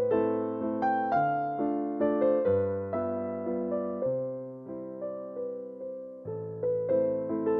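Background piano music: a melody over low bass notes, each note struck and left to fade.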